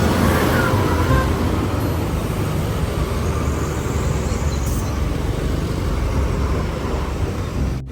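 Road traffic: the steady rumble of large vehicles' engines with tyre and road noise, breaking off suddenly just before the end.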